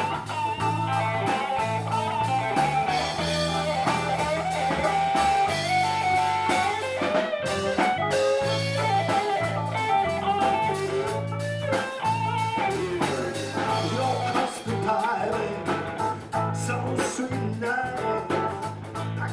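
Live blues-rock band playing an instrumental passage: an electric guitar lead line with string bends over bass guitar and drums.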